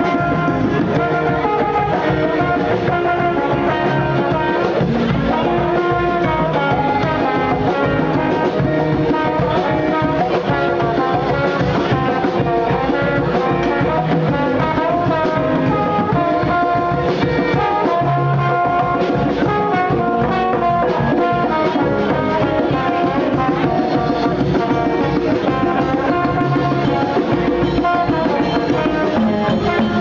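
A Haitian band playing live: trombone over congas and drums in a steady, driving rhythm.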